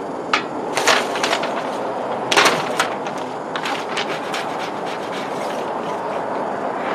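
Paper transfer tape crackling and rustling as it is peeled off freshly applied vinyl lettering. There are a few sharp crinkles in the first three seconds and lighter ticks after, over steady outdoor background noise.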